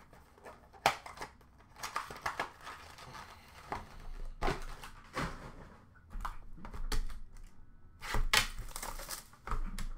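Trading-card packaging and plastic card holders handled and opened by hand: irregular crinkling, tearing and light clicks, in short bursts several times.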